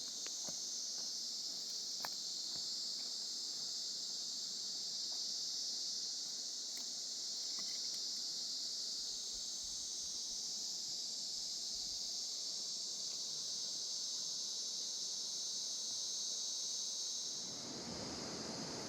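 A steady, high-pitched chorus of insects, with a few faint clicks. Near the end it drops away and a lower, wider rushing noise takes over.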